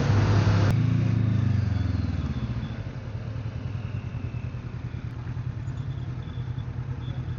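Motorcycle engine, revs falling as the bike slows, settling into a steady low idle about two to three seconds in. Wind noise on the helmet microphone cuts off suddenly under a second in.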